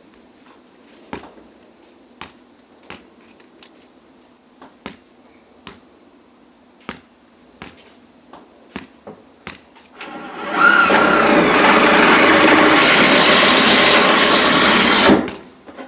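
A series of light clicks and taps, followed about ten seconds in by a loud power tool that runs steadily for about five seconds and then cuts off suddenly.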